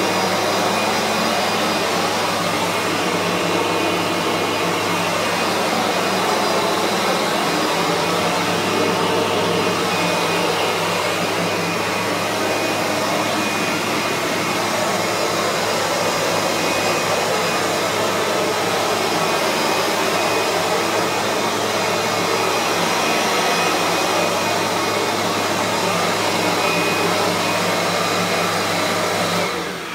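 Kirby G3 upright vacuum running with its floor-buffing head on a waxed laminate floor: a steady, loud motor drone with a hiss. It cuts off at the very end.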